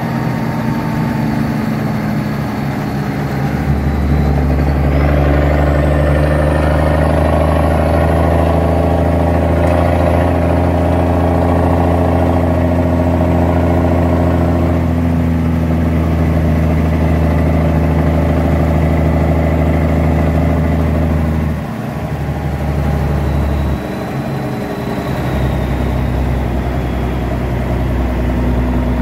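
M35A2 2½-ton army truck's turbocharged six-cylinder multifuel engine running under way, heard from inside the cab. It pulls harder from about four seconds in, then drops off briefly twice about three quarters of the way through before running on a little lower.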